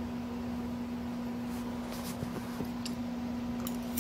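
A steady low hum, with a few faint clicks and smacks in the second half as a forkful of baked beans is lifted from the plate and taken into the mouth.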